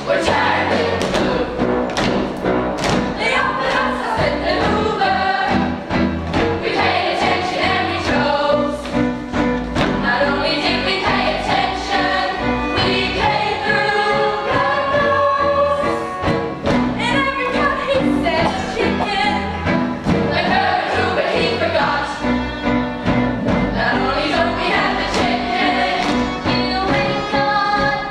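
Ensemble cast singing a musical-theatre chorus number with instrumental accompaniment, punctuated by sharp thuds.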